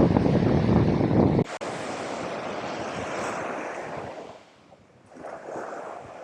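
Strong wind buffeting the microphone, cutting off suddenly about a second and a half in. Then the steady wash of surf on the beach, dipping and swelling again near the end.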